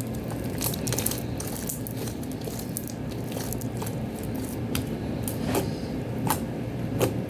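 Thick clear glue slime being worked by hand or stirred, giving irregular sticky clicks and pops, over a steady low hum.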